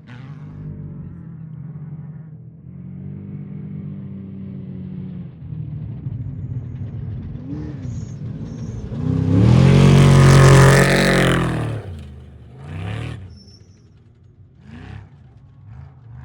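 Off-road race vehicle engines running, with one racing past loudly about ten seconds in, its pitch falling as it goes by, and fainter engines rising and falling afterwards.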